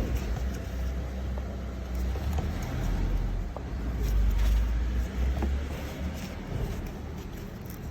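Low, uneven rumble that swells in the middle, with a few faint small taps and clicks of plastic as a wiring plug is worked onto the back of an LED fog-light bulb.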